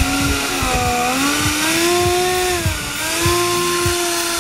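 Electric motor of a radio-controlled foam jet whining as its throttle is worked, the pitch sliding slowly up and down and then holding, over irregular low thumps.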